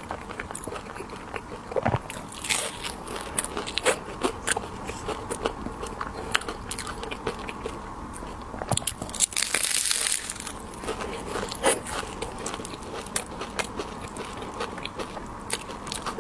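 Close-miked biting and chewing of candied haws, the hard sugar shell cracking in many sharp crackles, with louder crunches a couple of seconds in and about ten seconds in.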